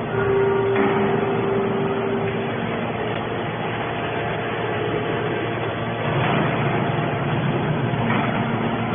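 Hydraulic scrap baler running: steady machine noise with a held whine over the first couple of seconds, growing louder and rougher about six seconds in.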